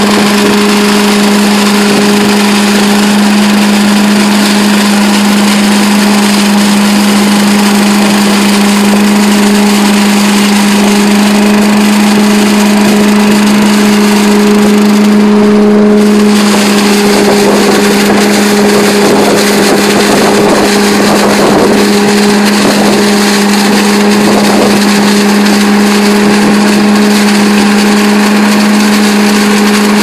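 Billy Goat KV600 walk-behind leaf vacuum running at a steady speed: its engine and fan make a loud, constant drone with a strong steady hum, the air noise of leaves being sucked in over it.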